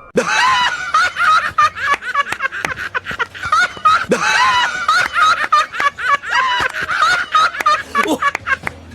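High-pitched giggling laughter, a quick run of short laughs that goes on and fades near the end.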